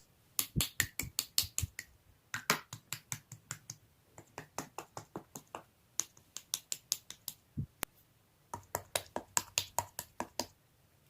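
Slime being pressed and squished by hand, giving runs of sharp clicking pops, about four or five a second, with short pauses between runs.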